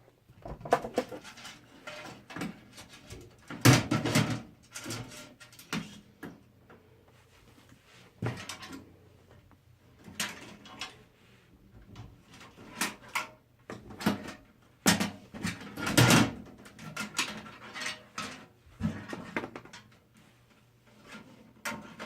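Irregular knocks, clicks and rattles of PC case hardware being handled and fitted, with the loudest knocks about four seconds in and again around sixteen seconds in.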